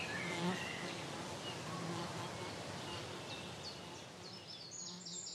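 A bee buzzing on and off around flowering plants, over a steady outdoor hiss, with birds chirping that grow busier near the end.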